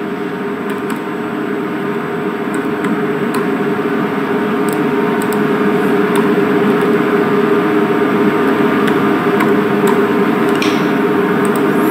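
Steady machine hum, a constant drone with a few held tones, growing slightly louder over the first few seconds, with a few faint clicks scattered through it.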